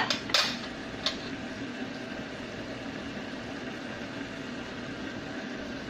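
A ladle knocks against a plate three times in the first second or so as it is set down, then a steady low hum.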